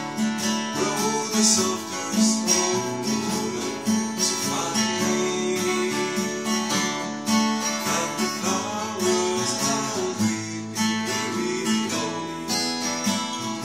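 Acoustic guitar strummed in a steady rhythm, playing an arrangement of an old Irish song.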